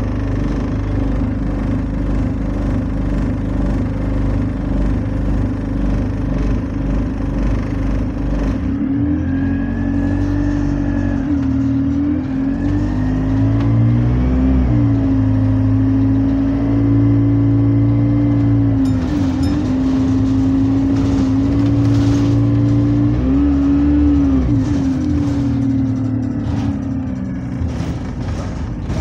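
A bus's diesel engine heard from inside the cabin, first idling roughly with a rattly low rumble, then about nine seconds in pulling away. Its note rises and falls several times as it accelerates through the gears, with a faint whine gliding above it.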